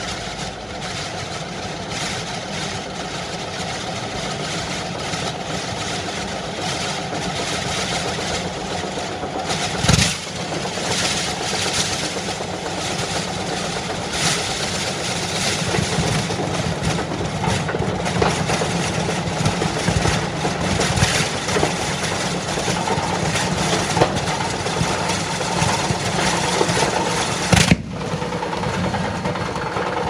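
Fireworks burning inside a Candy washing machine's drum: a continuous crackling hiss with a steady low rumble under it, broken by sharper bangs, the loudest about ten seconds in and just before the end.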